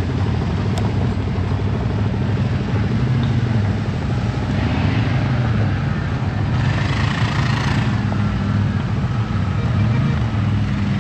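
ATV engine running steadily while riding along a trail, with a louder rush of hiss for a second or so a little past the middle.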